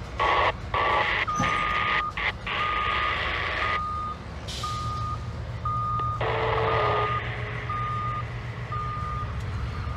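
A vehicle backup alarm beeping about once a second over the low rumble of a GE B36-7 diesel locomotive moving slowly, with loud hissing bursts in the first few seconds and again about six seconds in.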